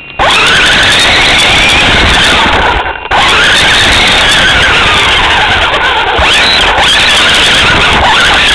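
JLX Overdrive toy RC car's electric drive motor and gears whining loud and close, heard from a camera mounted on the car. The pitch rises and falls with the throttle, and the sound cuts out briefly about three seconds in.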